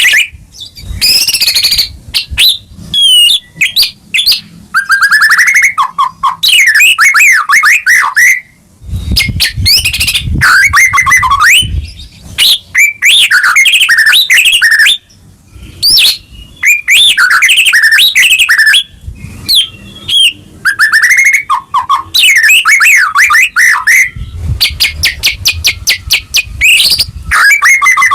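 White-rumped shama singing at full volume: varied phrases of sweeping whistles, rapid trills and chattering notes, each a few seconds long with short pauses between, and a fast run of repeated notes near the end.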